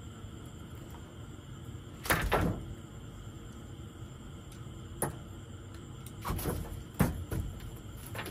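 Irregular knocks and scrapes as a freshly landed Boeseman croaker is handled and unhooked in a landing net on a raft deck. A cluster comes a little after two seconds, a single knock about five seconds in, then a burst of several, the sharpest about seven seconds in.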